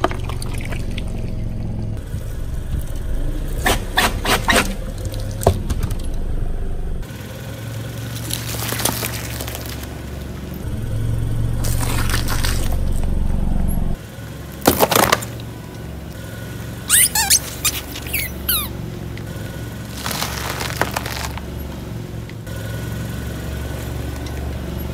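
A car tyre slowly rolling over and crushing things: squishing water beads, then foil-wrapped chocolates crackling and cracking under the tread in a series of short sharp bursts. The car's engine runs as a steady low hum underneath. The sound changes abruptly at each edit cut.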